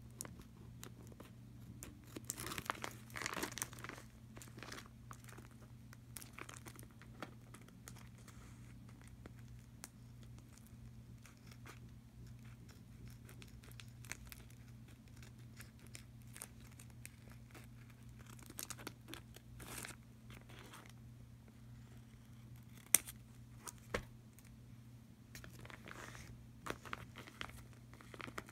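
Clear plastic packaging crinkling and rustling in intermittent bursts as it is handled and opened, with scattered clicks and one sharp snap about three-quarters of the way through. A steady low hum runs underneath.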